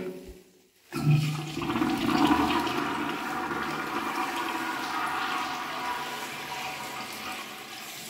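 Ceramic wall urinal flushing through its exposed flush valve. After about a second of quiet, water rushes in suddenly and runs steadily into the bowl with a hissing whine in it, easing slightly toward the end. The flush is working.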